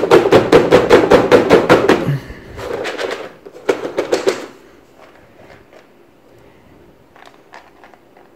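Black plastic tray of soaked, sprouting wheat seeds shaken back and forth to level the grain: the seeds and tray rattle and knock about six times a second for two seconds, then in two shorter bouts. After that come faint rustles of the seeds as they are smoothed by hand.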